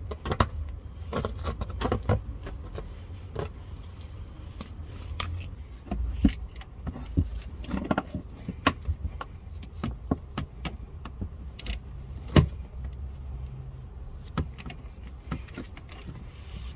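Irregular metallic clinks and clicks of a socket and extension bar working a plug bolt on a car's manual gearbox, with a sharper knock about twelve seconds in, over a steady low hum.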